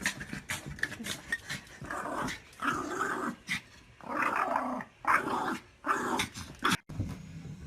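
A dog growling in several rough bursts, each about half a second to a second long.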